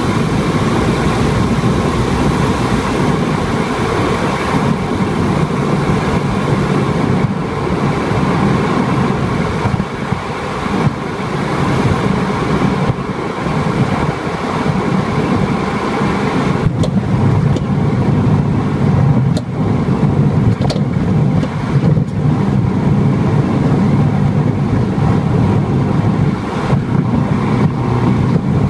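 Car driving with steady road and engine noise; from about two-thirds of the way in, several sharp clacks from the right-front BLITZ ZZ-R coilover over bumps. The clacking is a sign of a defective damper cartridge that had lost its gas charge.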